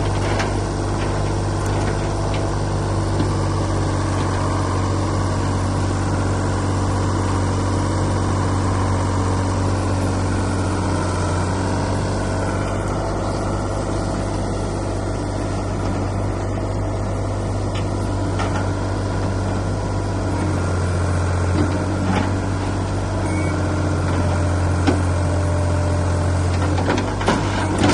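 Old Ford backhoe's engine running steadily under work. Its low note changes about twenty seconds in, and a few knocks come near the end.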